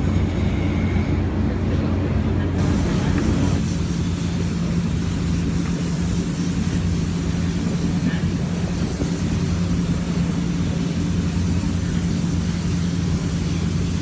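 Gas-fired glory hole running with a steady rushing roar and low hum while a large glass piece reheats inside it; the sound turns brighter and hissier about three seconds in.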